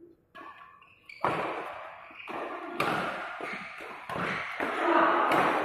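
Badminton rally: rackets striking the shuttlecock in a quick exchange, a series of sharp smacks starting about a second in, each echoing in the hall.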